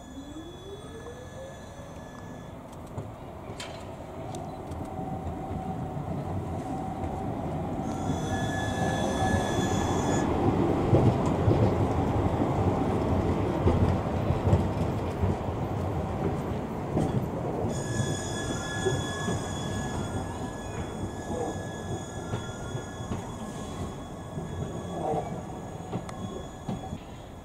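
Tram running along the rails, growing louder to a peak about halfway and fading again, with high-pitched wheel squeal in two stretches, a short one and a longer one in the second half.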